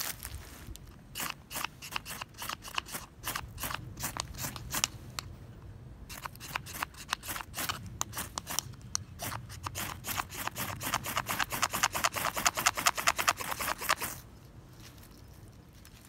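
Knife blade scraping in many quick, short strokes that speed up into a fast, dense run, then stop a couple of seconds before the end.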